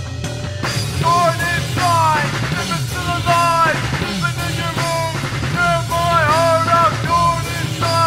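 Rock song played by a band: drum kit, a bass line, and a melody line in short phrases that slide up and down in pitch.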